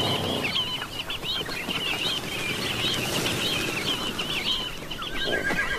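A large flock of Namaqua sandgrouse at a waterhole, with many short chirping calls overlapping throughout over the whirr of wingbeats. A longer, held call sounds near the end.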